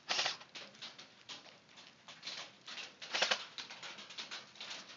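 Light rain beginning: irregular pattering taps of raindrops, with a few louder rustling bursts about two and three seconds in.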